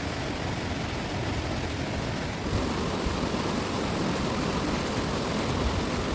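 Fast-flowing river water rushing over its bed, a steady roar that gets a little louder about two and a half seconds in.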